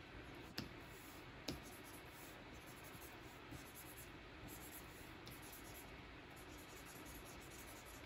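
Stylus drawing on the glass screen of a Wacom Cintiq 24 Pro pen display: faint scratchy pen strokes, with two sharp taps of the nib in the first two seconds.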